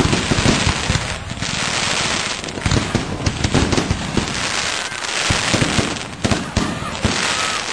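Fireworks going off in a dense, continuous crackle of rapid bangs, with a few brief lulls.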